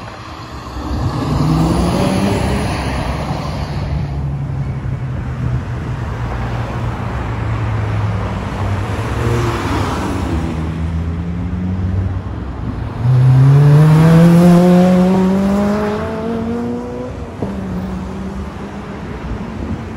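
Cars driving past one after another, their engines accelerating with rising pitch. The loudest comes about thirteen seconds in: an engine revving up with a climbing note for about three seconds as a car pulls past.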